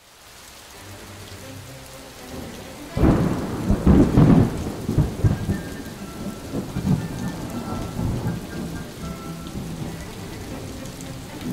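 Thunderstorm: steady rain with a sudden loud thunderclap about three seconds in that rolls away into a long rumble.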